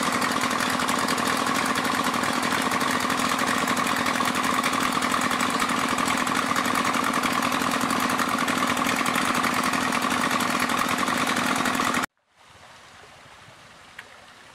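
Engine of an Alkon pump, used for sucking up sand, running steadily and loudly. It cuts off abruptly about 12 seconds in, leaving a much quieter steady noise.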